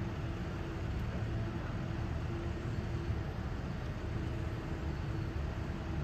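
Steady outdoor street ambience: a low rumble of traffic with a faint hum that comes and goes.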